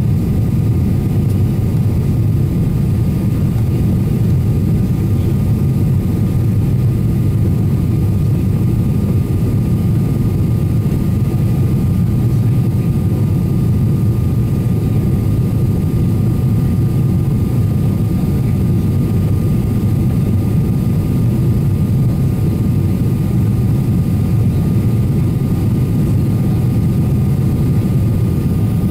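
Steady cabin noise inside a Boeing 777-300ER airliner: a loud, even low rumble from its GE90 engines and the airframe, with a thin steady high tone over it.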